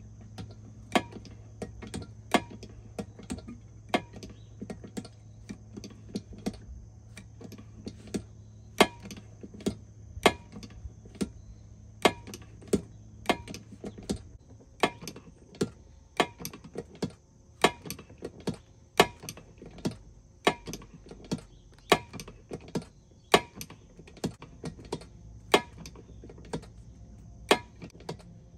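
Lever-action bucket pump on a 5-gallon pail being worked stroke after stroke, pumping Fluid Film undercoating through a hose into a sprayer bottle. It gives a sharp click on each stroke, repeating steadily.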